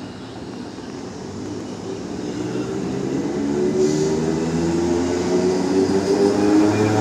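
Southern electric multiple-unit train pulling away from a station platform, its traction motors' whine climbing in pitch and growing louder as it accelerates. A short hiss sounds about four seconds in.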